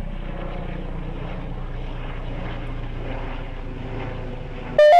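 Helicopter flying overhead: a steady drone of engine and rotor, with wind on the microphone. A short, loud, high-pitched sound cuts in near the end.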